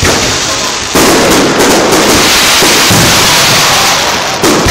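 Aerial fireworks shells bursting overhead: a sharp bang at the start and another about a second in, then a dense, sustained crackling, with a further bang near the end.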